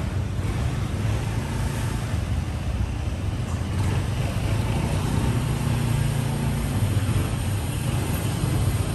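Steady low rumble of street traffic, with motor vehicles passing.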